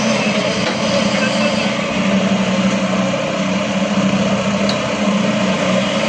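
A large engine running steadily, with a constant low hum that does not rise or fall.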